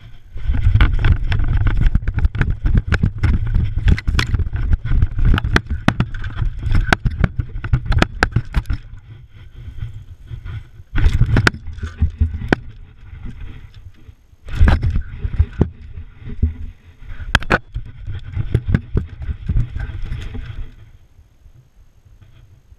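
A camera strapped to a running Irish Terrier, jostled by its strides: a fast, uneven run of thumps, knocks and clicks with rubbing and scraping as the dog moves over gravel under a porch. It dies down near the end as the dog settles.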